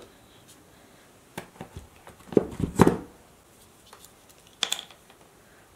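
Handling sounds from a folded biothane strip and its metal D-ring on a cutting mat: a cluster of light knocks and rubs in the middle, and another short click a little before the end.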